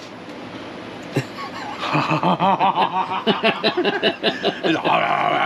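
A man laughing hard in quick, repeated ha-ha syllables, starting about two seconds in, after a single short click.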